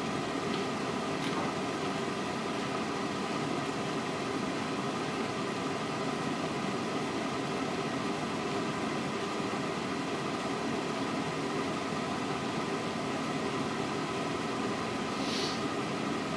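Steady room background noise: a constant hiss with a fan-like mechanical hum made of several steady tones. A brief, faint high hiss about fifteen seconds in.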